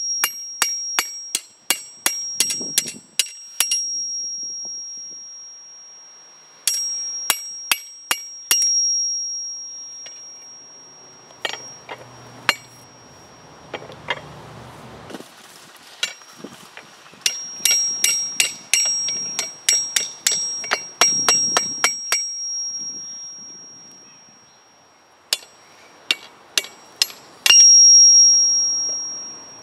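Hand hammer striking a hot steel rod on an anvil to bend a hook over the horn, the anvil ringing at a high pitch with each blow. The blows come in quick runs of about three a second, with pauses between runs.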